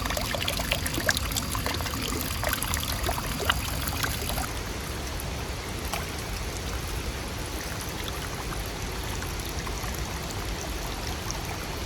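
Steady rush of running water from a stream or waterfall, with many small splashes and drips in it.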